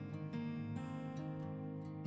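Background music: gentle acoustic guitar, plucked and strummed.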